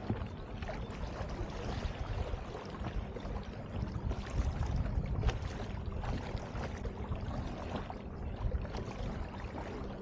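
Water rushing and lapping against the hull of a moving plastic kayak, over a steady low rumble.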